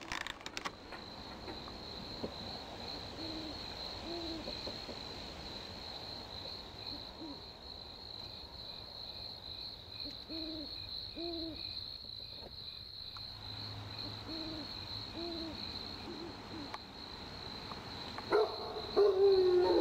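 Night ambience: an owl hooting in short pairs of hoots, over a steady high chirping of crickets. Near the end a sudden louder call falls in pitch.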